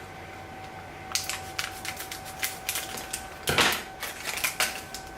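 Crinkling and crackling of a pin blind-bag package being opened and handled, a quick run of clicks and rustles with one louder, longer crackle about three and a half seconds in.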